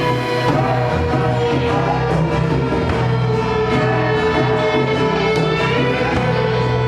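Psychedelic rock band playing live, instrumental: a long held lead note, rising slightly near the end, over steady bass and drums.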